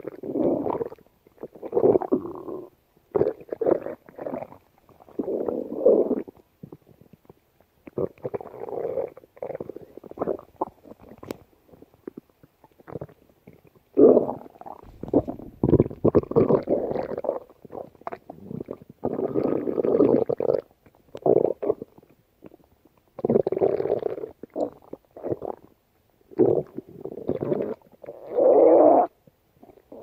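Human stomach growling in a long run of separate growls, each lasting about one to two seconds, with short gaps between them.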